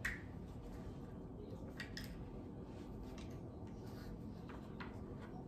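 Light clicks and crinkles of small plastic dipping-sauce cups being handled and pried open with long fingernails, the sharpest click right at the start and another about two seconds in.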